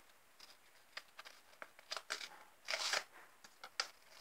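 Paper sticker packet and stickers being handled: faint, short scattered crinkles and clicks, with a longer, louder rustle a little under three seconds in.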